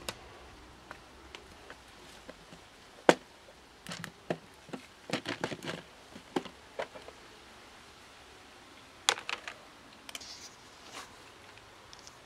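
Sharp plastic clicks and snaps from a clip-lock food container as its latches and lid are worked open: a single loud snap about three seconds in, a quick cluster of clicks around five to six seconds, and another snap about nine seconds in.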